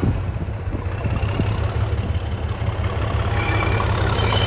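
Class 37 diesel-electric locomotive running toward the listener, its English Electric V12 engine giving a steady low rumble that grows slightly louder as it nears. A faint high-pitched whine joins about three seconds in.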